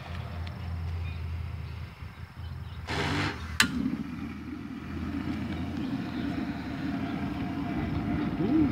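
Propane burner under a homemade copper monotube steam boiler lighting: a short hiss of gas about three seconds in, a sharp pop as it catches, then the flame burning steadily.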